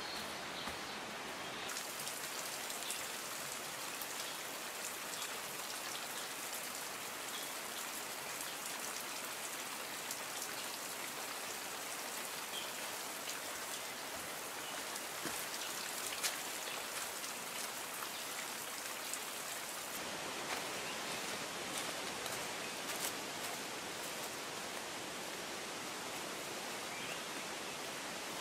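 Steady hiss of water noise with scattered light ticks and taps, shifting slightly in tone twice.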